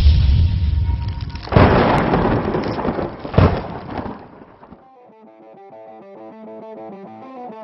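Intro sound effects: a rumbling boom with two sudden hits, dying away about four seconds in. Quiet music with picked notes then starts.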